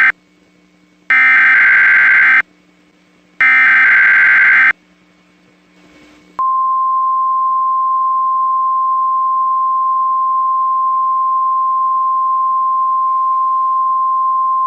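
NOAA Weather Radio Emergency Alert System signal. The end of one SAME header data burst is followed by two more bursts of about a second and a half each, a second apart. About six seconds in, the steady 1050 Hz weather alert tone starts and holds, heralding a tornado watch bulletin.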